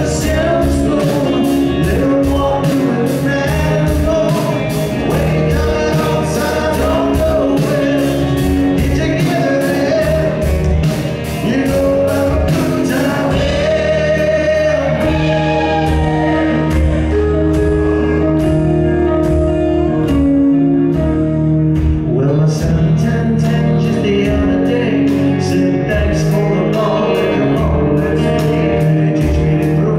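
Live rock band playing: male lead vocal over electric guitar, bass and drums, with a steady ticking cymbal beat. About halfway through the cymbals drop out for several seconds, then come back.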